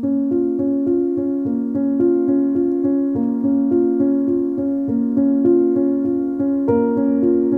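Instrumental background music: a keyboard or electric piano plays a quick, repeating pattern of notes over held chords, the pattern growing fuller near the end.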